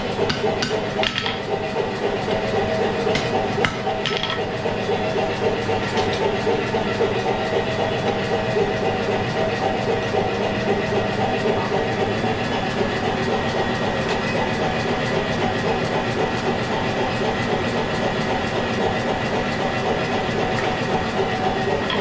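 A steady mechanical drone with a few fixed tones running through it, and a few sharp clicks or knocks in the first four seconds.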